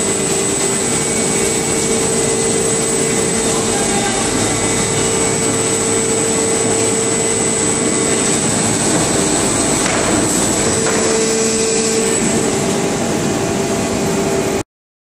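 Repkon rim roller (flow-forming) machine running: a steady, loud machine noise with a low hum and a thin high whine, cutting off suddenly near the end.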